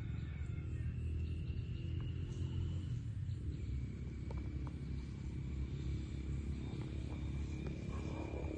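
Outdoor ambience: a steady low rumble under a thin, steady high-pitched drone that drops slightly in pitch about three and a half seconds in, with a few faint clicks.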